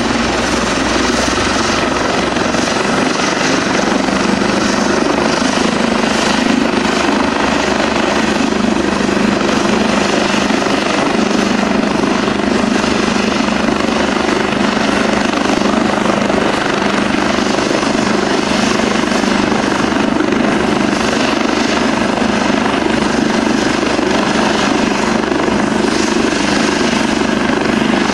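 Eurocopter EC145 medical helicopter running steadily on the ground with its main rotor turning, a loud, even engine and rotor noise.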